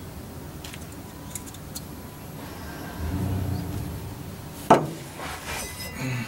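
Hand work on a fuel hose and its clamp: a few light clicks, then one sharp clack about two-thirds of the way through, followed by smaller clicks.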